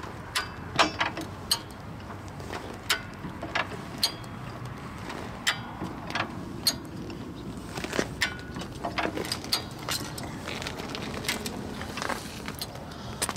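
Hi-Lift farm jack being pumped to raise the rear of a Toyota Land Cruiser: sharp metallic clicks and clacks at irregular intervals as its climbing pins catch in the holes of the steel bar.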